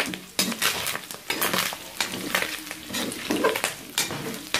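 Pork pieces frying and popping in their own rendered fat in an aluminium wok, with a metal spatula scraping and knocking against the pan as it stirs. The popping is the sign that the pork is starting to brown and catch on the bottom of the pan.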